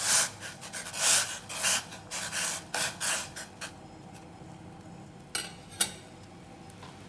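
Metal spoon scraping and rubbing against the inside of a stainless steel pot of boiling water, a quick series of strokes over the first three and a half seconds. This is followed by two sharp knocks close together near the end.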